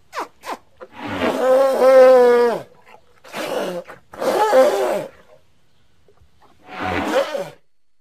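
Designed prehistoric-elephant (Deinotherium) creature vocalizations, mixed from animal recordings. Two short sharp snorts come first, then one long, steady-pitched bellow, followed by three shorter calls with pauses between them.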